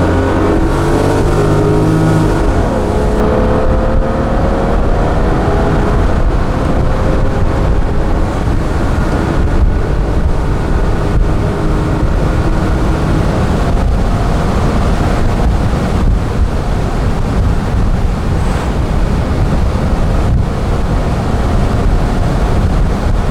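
A Mercedes-Benz 280SL's M110 2.8-litre twin-cam straight-six accelerates hard through an automatic gearbox. Its note climbs in pitch, drops briefly near the start of a gear change, and climbs again. Steady wind and road rumble grow until they drown much of the engine at high speed.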